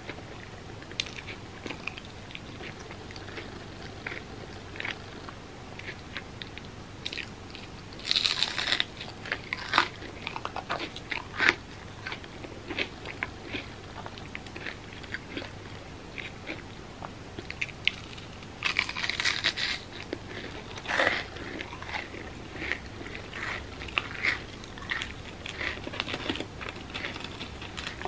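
A person biting into and chewing crispy fried mochi bread close to the microphone: two loud crunching bites, one a third of the way in and one just past the middle, with wet chewing and small mouth clicks in between.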